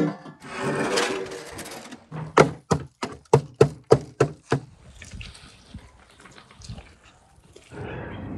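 Hardened salt crust over a baked sturgeon being cracked open: about nine sharp knocks in quick succession, after a brief rasping noise near the start, followed by quieter crumbling and scraping of salt.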